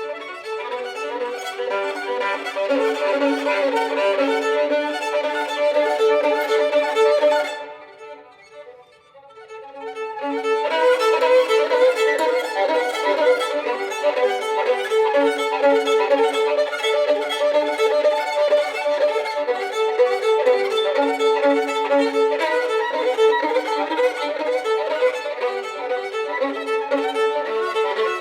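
Solo violin playing a fast, busy passage of short notes. About seven and a half seconds in it drops suddenly to a soft passage, then comes back loud about three seconds later.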